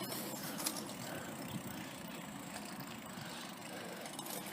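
Faint, steady low rumble of a car's engine and road noise, with a few light clicks.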